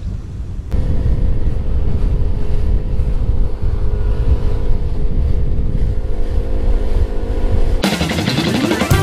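Bass boat's outboard engine running at a steady speed, cutting in abruptly about a second in.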